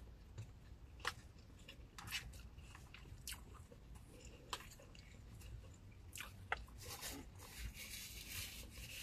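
Faint chewing and eating sounds: a person eating takeout food, with irregular small clicks and crunches that come more often in the last few seconds.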